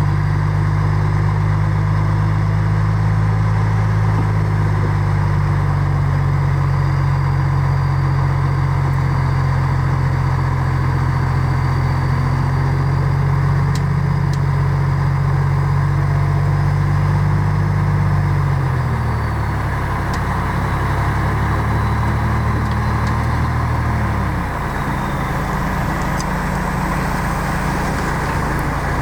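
Heavy diesel engine of earthmoving machinery running steadily, its pitch dropping about two-thirds of the way through as it slows, then shifting again a few seconds later.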